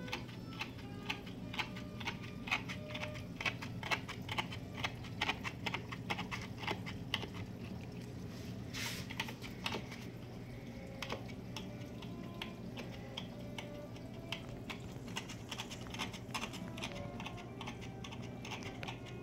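Razor blade of a Mag-Float magnetic algae cleaner scraping algae off aquarium glass: rapid, irregular clicking and crackling, with one longer scrape about nine seconds in. A steady low hum runs underneath.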